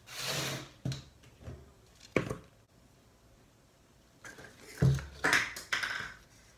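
Rustling of pothos leaves and the handling of plant pots: short rustles, a couple of sharp clicks, and a dull knock followed by more rustling near the end.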